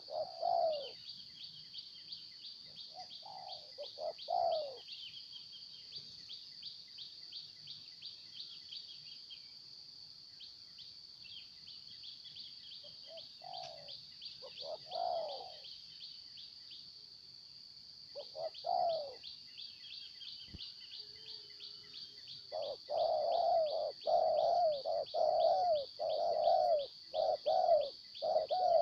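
Spotted doves cooing, a few separate coos and then a fast run of repeated coos over the last six seconds. A steady high trill, pulsing several times a second, runs underneath.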